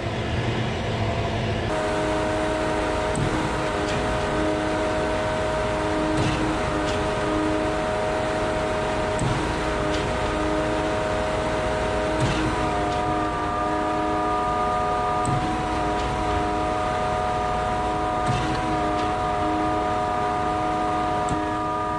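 Concrete boom pump running steadily under load: its engine and hydraulics make a constant whine made of several steady tones. Faint knocks come about every three seconds.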